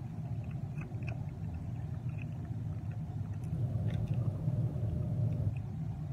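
A steady low hum in the background, with faint crinkles and ticks of small foil seasoning sachets being torn open and squeezed by hand.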